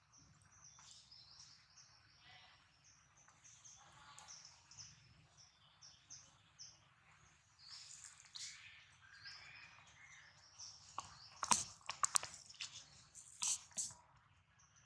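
Faint, high, short chirping calls from a bird or small animal throughout. A cluster of sharp clicks, the loudest sound, comes about three quarters of the way through, with another click near the end.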